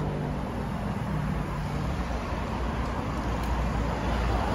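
Street traffic noise, steady throughout, with a nearby vehicle engine running for the first two seconds or so before it fades.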